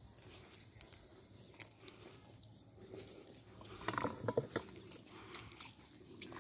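Quiet footsteps on wet grass, then about four seconds in a short burst of splashes and knocks as a plastic basin holding a metal pot is set down in shallow muddy water.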